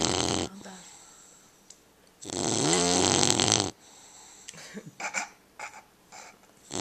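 English bulldog puppy snoring loudly in its sleep: one long rattling snore about two seconds in, lasting about a second and a half, then a few short, quieter breaths.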